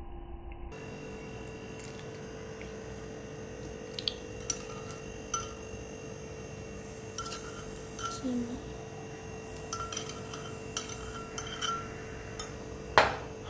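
A metal spoon clinking lightly now and then as it scoops and spoons juice over watermelon balls, with a louder knock near the end, over a steady low hum.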